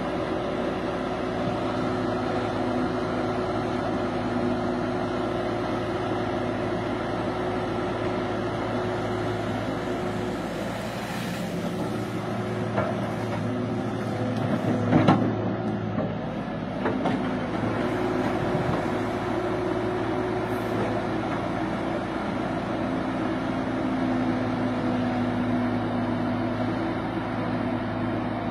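Caterpillar 312B excavator's diesel engine running steadily while the machine digs, with a few sharp knocks about halfway through.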